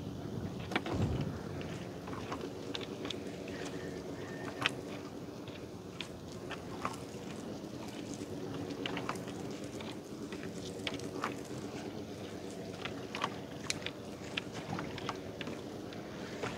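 A boat motor running steadily at low speed, with many light clicks and knocks scattered through it and a brief low rumble about a second in.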